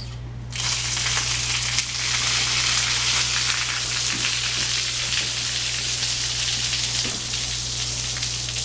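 Water gushing and splashing out of a flooded forced-air heating duct that has just been cut open, starting suddenly about half a second in and running steadily. A steady low hum underlies it.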